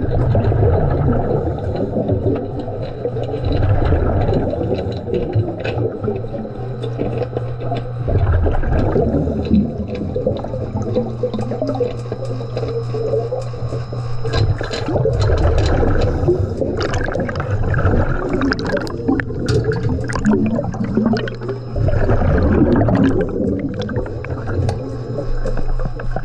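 A diver's breathing heard underwater: slow cycles of gurgling exhaust bubbles and breathing gas that swell every several seconds, with scattered sharp clicks and knocks.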